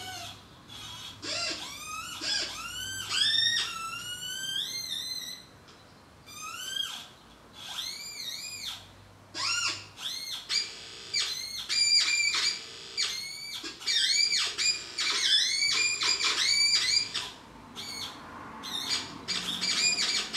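Paper cone speakers playing electronic chirps: short pitched tones that slide up and down or arch, coming in quick runs, with short pauses between runs.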